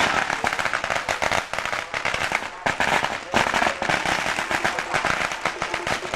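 A long string of firecrackers hung from a bamboo pole going off in a rapid, continuous crackle of pops, with one or two brief lulls.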